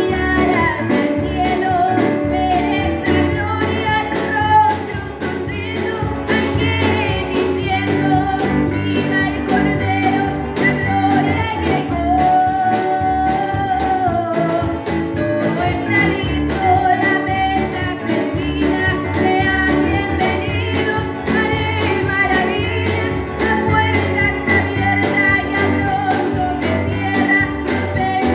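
A woman singing a song through a microphone, accompanied by a strummed acoustic guitar and a Korg electronic keyboard.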